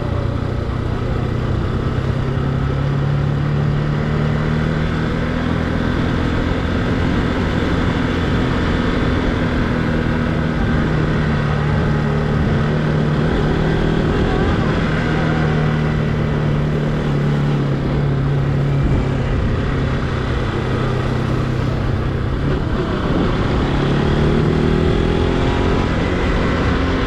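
Motorcycle engine running while riding, its note rising and falling with throttle and speed, over steady wind and road noise.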